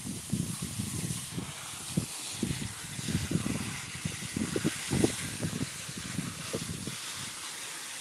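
Water spraying hard from a garden hose nozzle onto soil, a steady hiss, with irregular low bumps and rumbles mixed in.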